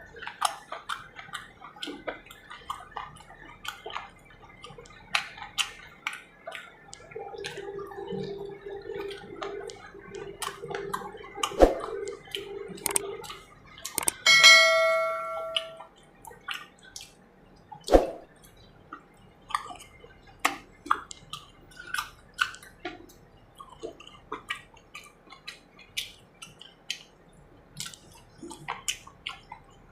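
Close-up eating sounds of someone chewing pota kaleji (chicken gizzard and liver): wet smacks and small clicks, many a second. About halfway through comes a single bright metallic ring that dies away over a second or so.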